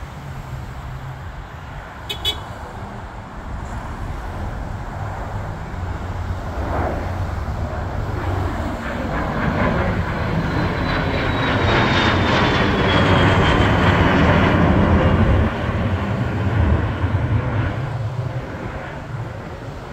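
Business jet with twin rear-mounted engines climbing out after takeoff and passing overhead: the engine noise swells to its loudest about twelve to fifteen seconds in, with a high whine falling in pitch as it goes over, then fades as the jet climbs away.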